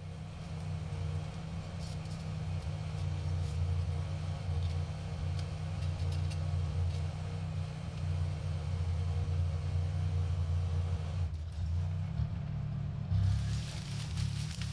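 A vehicle engine running steadily with a low rumble, and a rush of hiss starting about thirteen seconds in that lasts a couple of seconds.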